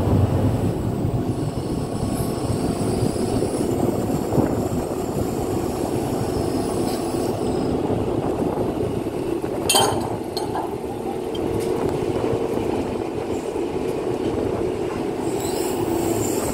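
Steady low machinery rumble from a ship-mounted crane lifting a refrigerated shipping container, with one sharp clank about ten seconds in.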